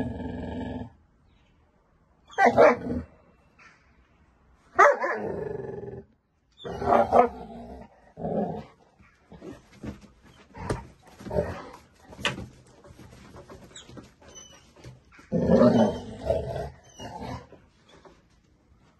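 Two dogs play-fighting: a string of short barks and growls in separate bursts, the loudest near the start, about 2.5 and 5 seconds in, and again near the end.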